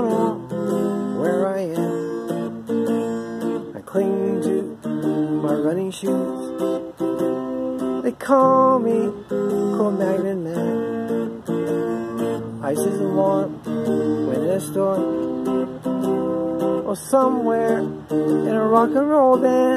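Solid-body electric guitar strummed in a steady rhythm, with a man singing over it.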